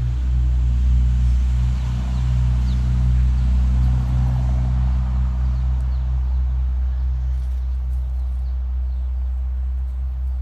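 Steady low mechanical drone, a continuous hum that holds at an even level.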